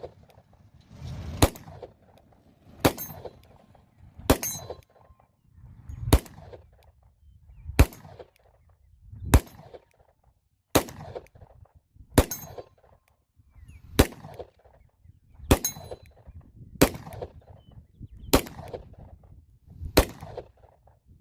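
Glock 29 Gen 5 pistol in 10mm Auto firing slow, aimed single shots, about one every one and a half seconds, thirteen in all, each crack followed by a short echo.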